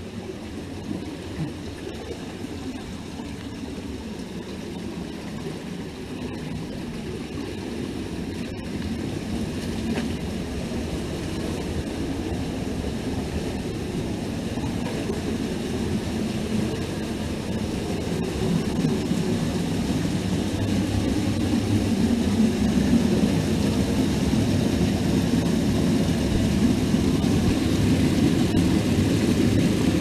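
Cave stream rushing over rocks: a steady, low rush that grows louder as a small cascade pouring between boulders is approached.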